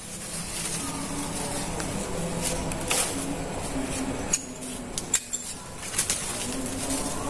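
A dove cooing, low short notes repeated again and again, with a few sharp clicks from hands binding the graft.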